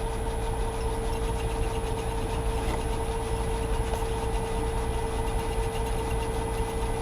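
Myford metal lathe running steadily with its spindle speed turned down for drilling: an even motor hum with a constant tone.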